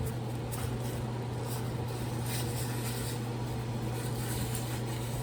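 Steady low electrical-sounding hum from workshop equipment, with faint, irregular light rustling and scraping as coated transformer winding wire is spun off its bobbin by hand.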